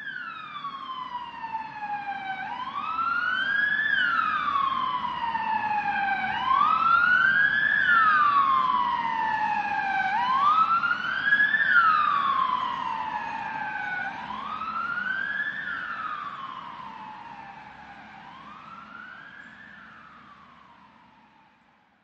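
Distant ambulance siren in a slow wail, each cycle rising over about a second and a half and falling over about two and a half, repeating about every four seconds. It grows louder toward the middle and fades away toward the end, over a low rumble.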